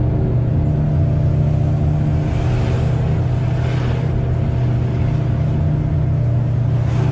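Engine of an open-sided tour bus running at a steady pace, heard from on board as a constant drone. A rushing noise swells and fades about halfway through.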